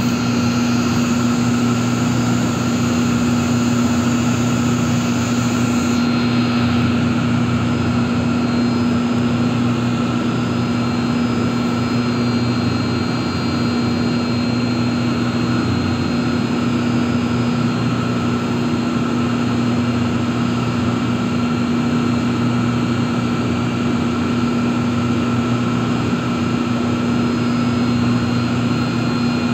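Steady drone of running machinery in a chiller plant room: a constant low hum with a fainter higher whine, unchanging throughout.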